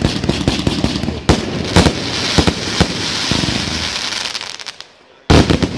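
Aerial fireworks going off: a rapid run of sharp bangs and crackling from bursting shells, with a louder burst about a second in. The crackle fades to a brief lull, then another sudden loud bang comes near the end.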